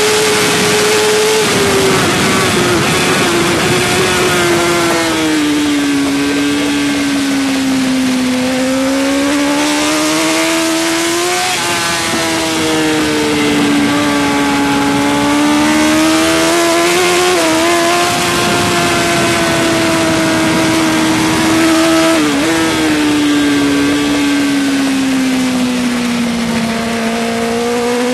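Suzuki GSX-R1000 K5 superbike's inline-four engine heard from on board at racing speed, holding a high-revving note whose pitch swells and sags as the throttle is worked, with a few brief dips. Wind rushing past the bike runs under the engine.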